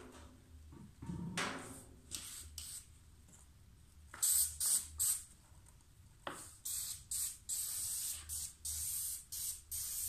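Spray gun on a hose from a pressurised bottle of clear spray adhesive, hissing in short repeated bursts as glue is sprayed onto the board. The bursts start about four seconds in, after a few faint handling sounds.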